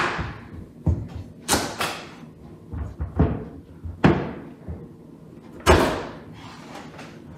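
Chef's knife cutting a small pumpkin into quarters on a wooden cutting board: about eight sharp knocks as the blade chops through the rind and strikes the board, and as the pieces drop onto it, the loudest near the end.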